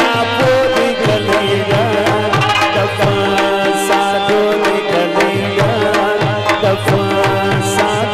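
Pashto attan dance music: drums beating a steady rhythm under a sustained melodic line.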